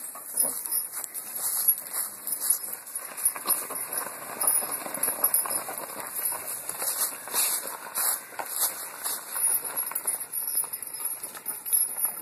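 A mule's hooves clip-clopping on gravel as it pulls a small cart, with the harness and cart rattling and jingling.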